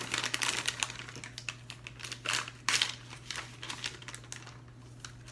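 Plastic MRE ration packaging crinkling and crackling as it is handled, in quick irregular crackles, with the loudest pair about two and a half seconds in and dying down near the end.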